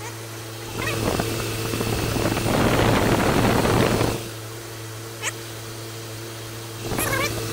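Pickup truck engine idling with a steady hum, with a loud rushing noise when heard close to its open oil filler, which is uncapped while the oil treatment goes in. A few short high chirps come and go.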